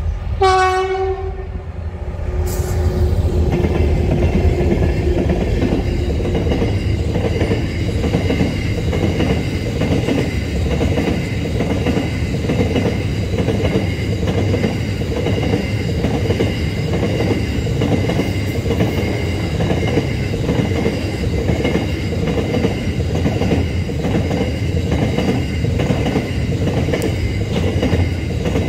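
Freight train horn sounds one short blast near the start. Then the train's wagons roll past with a steady rumble and a regular clickety-clack of wheels over rail joints, with a thin high ringing from the wheels on the rails.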